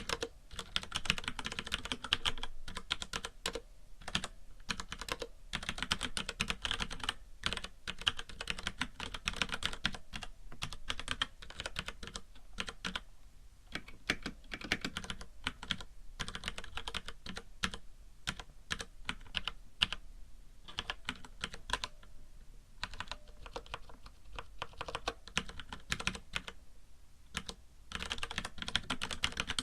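Continuous typing on a FILCO Majestouch mechanical keyboard with Cherry MX Brown (tactile) switches: rapid runs of key clicks and clatter with short pauses between bursts, over a faint hiss.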